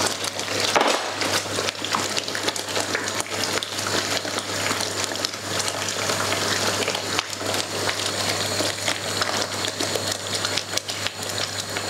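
Tomato sauce bubbling and spitting in a frying pan as it is stirred with a wooden spoon: many small pops and scrapes, over a steady low hum.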